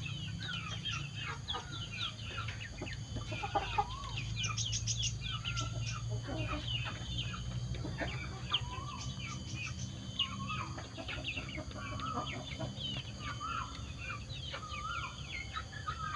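A flock of young crossbred village chickens and turkey poults calling: many short high peeps and chirps overlapping, with some wavering, warbling calls, over a steady low hum.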